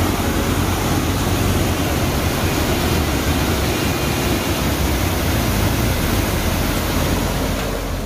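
River water cascading over stepped rock ledges in small falls, a steady, loud rush of white water.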